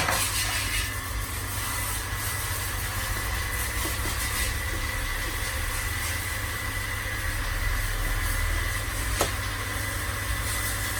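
Steady mechanical drone with a thin, high steady whine, unchanging throughout, and a faint click or two.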